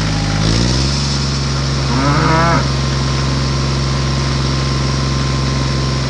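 Tractor engine running steadily, its pitch stepping up slightly about half a second in. A cow moos once about two seconds in.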